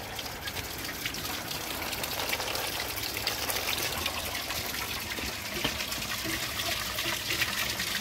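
A 1930 Standard Madera/Savoy elongated toilet with a mid tank flushing: a steady rush of water pouring and swirling into the bowl.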